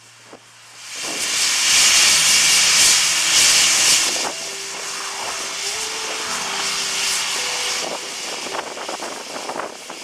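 Express steam locomotive 18 201 blowing off steam from its open cylinder drain cocks as it starts to move: a loud hiss that begins about a second in, is loudest for the next few seconds, then carries on less loudly.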